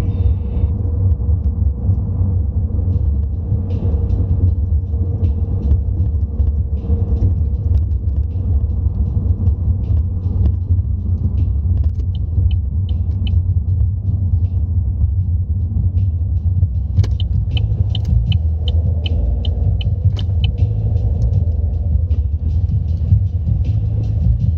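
Steady low rumble of a car's engine and tyres heard from inside the cabin while driving. About two-thirds of the way in there is a run of regular light ticks for a few seconds.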